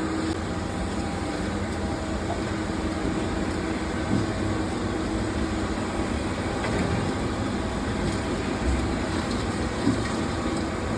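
Toshiba BTD-130H.R22 CNC table-type boring mill running with a steady mechanical hum, with a couple of light knocks.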